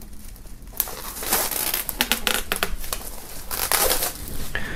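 Plastic shrink-wrap film being peeled off a box and crumpled, a run of irregular crinkling rustles that picks up about a second in.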